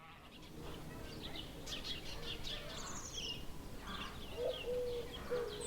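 Small birds chirping and twittering in short high calls over a quiet outdoor background, with soft sustained music notes coming in about four seconds in.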